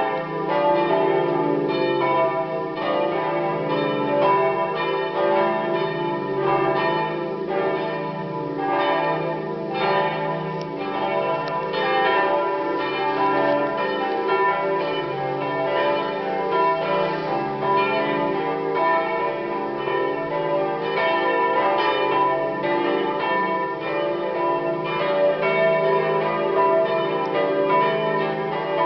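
Full peal of the St. Margaretha church bells: several bells swinging together, their strokes overlapping in a steady, unbroken clangour, rung to call to the Saturday evening vigil Mass.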